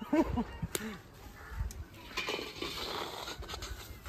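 Perforated steel skimmer scraping and stirring through hot salt in a wok, a gritty rubbing that is loudest about two seconds in, with a sharp click a little under a second in.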